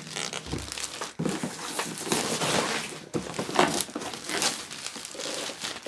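Clear plastic shrink-wrap being peeled and pulled off a cardboard router box, crinkling and crackling irregularly.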